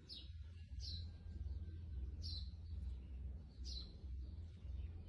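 A bird chirping: four short, high, falling chirps a second or so apart, over a steady low rumble.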